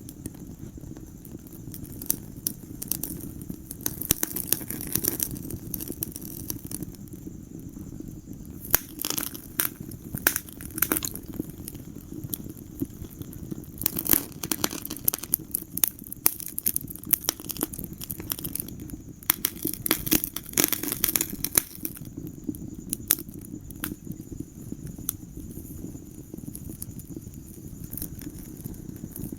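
Fire crackling in a fireplace: irregular sharp pops and snaps over a steady low rumble of the flames, coming in denser clusters now and then.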